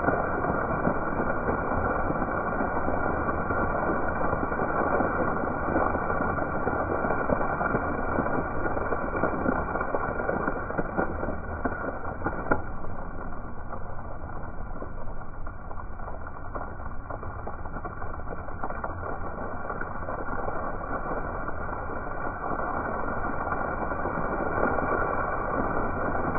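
Ground-level fountain jets spraying up through the paving and splashing back onto wet stone, a steady rushing noise. It drops for several seconds in the middle as the jets fall lower, then builds again.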